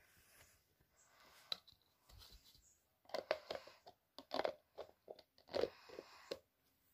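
Faint handling noise: short, irregular rustles and crunches as a toy and bedding are moved about close to the microphone, clustered in the second half.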